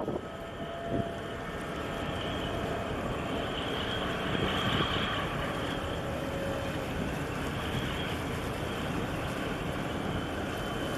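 Steady mechanical drone with a faint, thin high whine over it, swelling slightly about halfway through.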